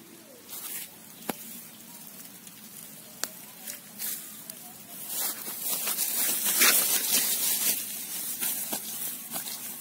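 Grass and leafy weeds rustling and crackling as they are pushed through by hand, with two sharp clicks about one and three seconds in and the rustling loudest in the second half.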